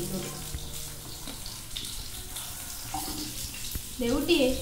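Fish frying in hot oil in a pan, a steady sizzle as the fish crisp.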